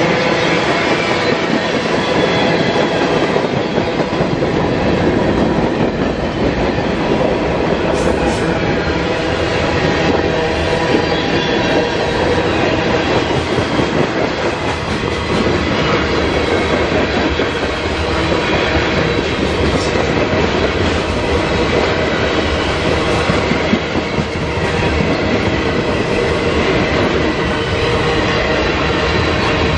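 Freight train cars rolling past close by: a steady loud rumble of steel wheels on rail with clickety-clack.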